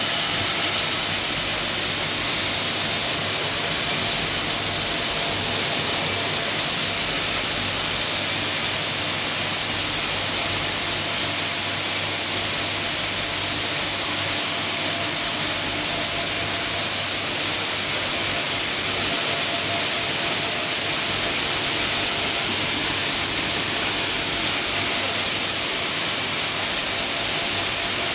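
A 110/80 conical plastic-recycling granule (pelletizing) machine running steadily: a loud, even hiss with a faint steady hum beneath.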